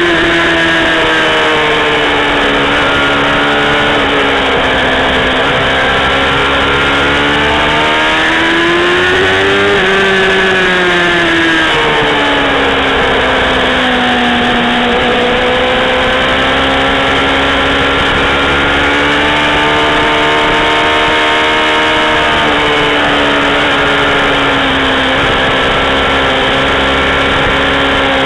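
Kawasaki ZXR400 inline-four engine heard onboard on a racetrack. The revs climb for about the first ten seconds, fall away over the next few, then hold fairly steady with small rises and dips for the rest.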